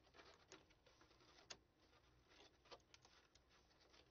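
Faint rustling and a few light clicks of tape being pressed down onto manila file folders and the card being handled, in an otherwise near-silent room.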